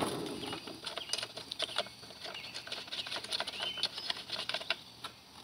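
A run of light, irregular clicks, taps and scratches from small parts of a Stihl BG 86 leaf blower being handled and fitted by hand. The sounds thin out near the end.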